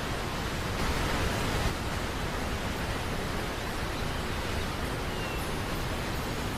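Steady rush of a waterfall and river, an even noise with no distinct events.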